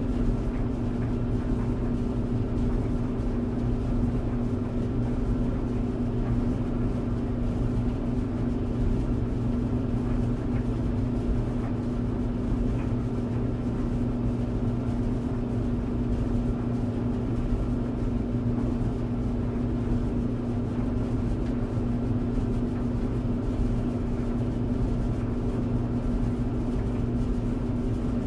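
Tumble dryer running steadily: a constant low hum with a rumble underneath, unchanging throughout.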